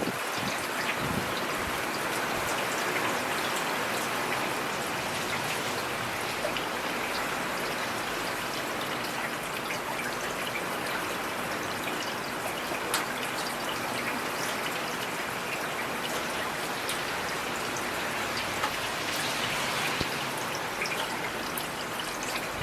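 Heavy rain falling steadily, with individual drops tapping sharply now and then.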